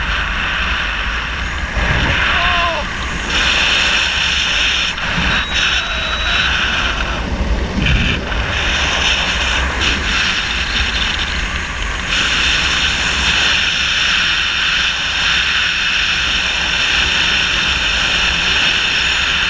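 Steady rush of wind across the camera's microphone during a parachute descent under an open canopy, loud and even, with a few brief dips in the middle.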